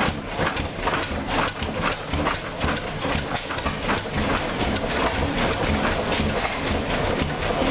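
Large antique stationary gas engine running, its big flywheel turning, with a steady rhythm of knocking exhaust beats over a low rumble.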